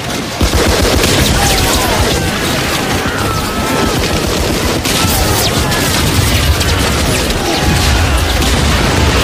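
Rapid machine-gun fire starting about half a second in, with heavy booming explosions that grow stronger near the end.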